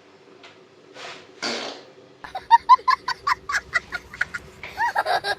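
A short breathy hiss, then rapid laughter in quick ha-ha bursts, about four or five a second, starting about two seconds in.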